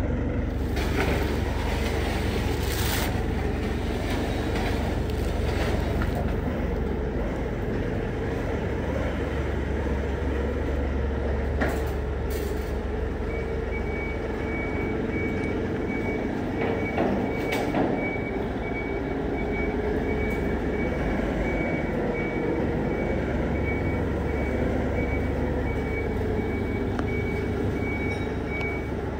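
Forklift running steadily with a low hum, and from about halfway through a high, rapidly repeating warning beep; a few knocks sound early on.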